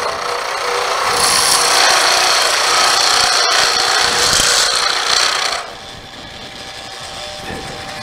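Drill bit in a lathe's tailstock chuck boring into a spinning mesquite blank, a loud steady rasping of the cutting. About five and a half seconds in the cutting stops as the bit is backed out, leaving the lathe running more quietly.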